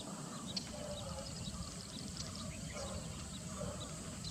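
Birds chirping in many short, scattered high notes over a steady low rumble.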